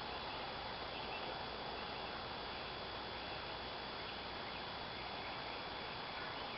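Steady outdoor background hiss with a faint, constant high-pitched whine over it.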